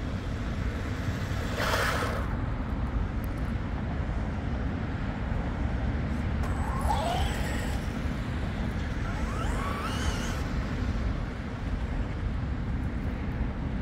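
Electric motor and drivetrain of a Traxxas Ford F-150 Raptor R RC truck on stock gearing, whining up and down in pitch twice as it is driven, over a steady rushing noise. A short rush of noise about two seconds in.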